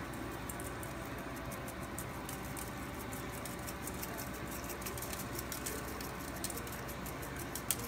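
Seasoning shaken from a shaker bottle over raw ribs in a stainless steel sink: light, scattered ticking and pattering of granules, over a steady background hum, with one sharper tick near the end.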